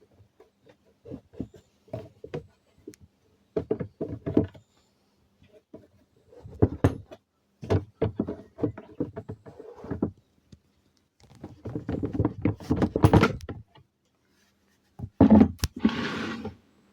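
Irregular knocks, thunks and clatter in several short bouts, like hard objects being handled and set down, with a longer scraping rush near the end.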